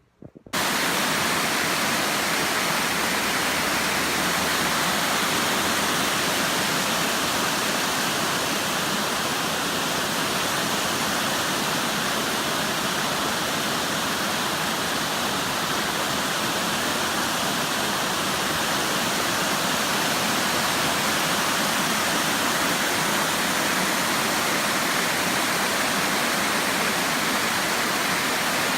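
Waterfall: a steady, full rush of falling water that cuts in suddenly about half a second in.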